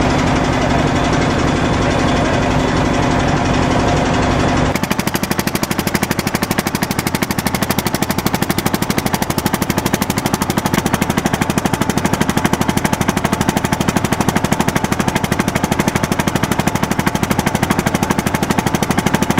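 Boat engine running loudly. About five seconds in, a steady hum gives way to a fast, even hammering of sharp beats.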